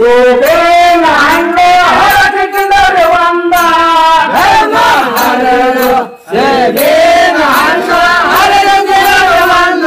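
Men singing a Kannada Muharram folk song (Muharram pada) with long held notes, breaking off briefly about six seconds in before going on.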